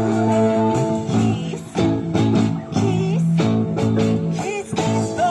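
Live music played for dancing, with sustained chords and frequent percussive strokes.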